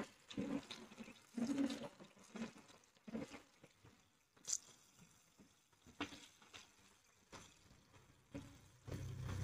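Banana fritters deep-frying in hot oil: soft, uneven sizzling and crackling, with a sharp tick about four and a half seconds in. A low hum comes in near the end.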